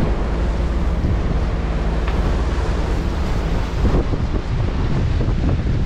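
Strong wind buffeting the microphone over rough sea washing past the hull of a sailing yacht in a squall, with a brief louder gust about four seconds in.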